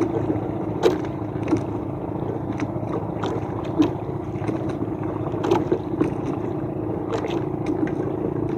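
Small outrigger fishing boat's engine running steadily, with scattered short knocks.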